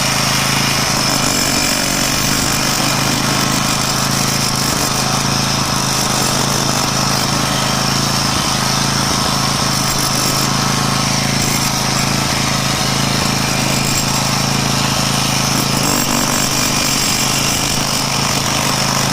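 Jackhammer hammering without a break, chiselling cement joints out from between floor tiles.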